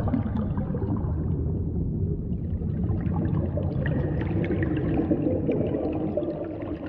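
Water sloshing and gurgling over a steady low rumble, with small scattered splashes.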